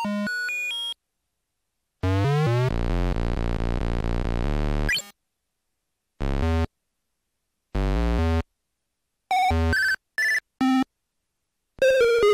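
Chiptune music from a Yamaha YM2149 sound chip on a DigiMuz cartridge for the Commodore Plus/4. It plays in short phrases broken by dead silences: a long held chord in the first half, then several brief stabs, and a continuous tune that starts just before the end.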